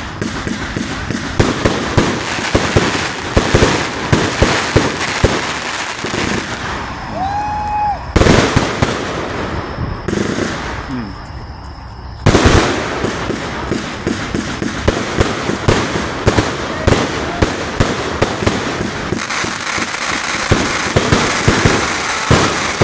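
191-shot 'Easy Money' firework cake firing continuously: a rapid stream of shots and bursts. It gets suddenly louder at about 8 and again at about 12 seconds in.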